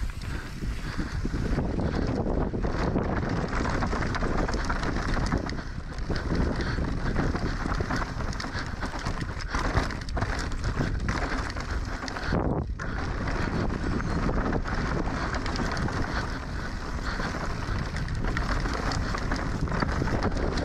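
Wind rushing over a helmet camera's microphone, mixed with mountain bike tyres and frame rattling over a rough trail at speed. The noise is steady, with a brief dip about twelve seconds in.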